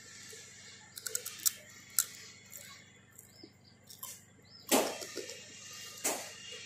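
Mouth sounds of chewing crispy fried pork skin: scattered small clicks and crackles, then two louder crunches about five and six seconds in.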